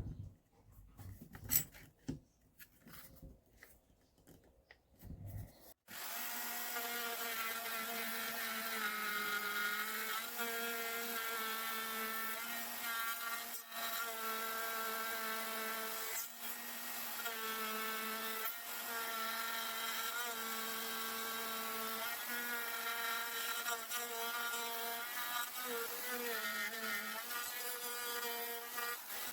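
Electric router starting up about six seconds in, after a few knocks and clicks, and then running steadily with a high whine while cutting a half-lap joint in wood; its pitch sags briefly now and then as the bit takes load.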